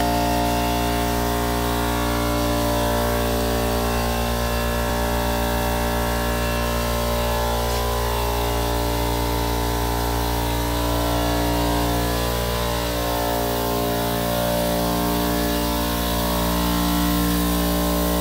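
Air compressor motor running steadily, a constant hum for the spray gun's air supply.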